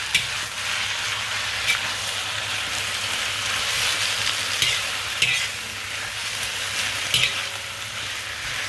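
Tuaran egg noodles and greens sizzling in a hot wok over a high gas flame, with a steady hiss and a few sharp scrapes and clacks as the noodles are stirred and tossed.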